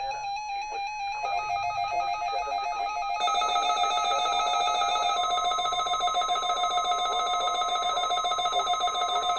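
Weather radio test alert: warbling electronic alarm tones, with a second, louder warble joining about three seconds in, and a steady high tone, the 1050 Hz weather radio warning alarm tone, starting about five seconds in.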